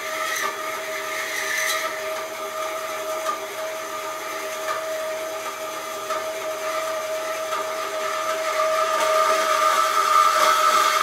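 A steady machine whine holding one unchanging pitch with a higher overtone, with a hiss above it, growing slowly louder toward the end.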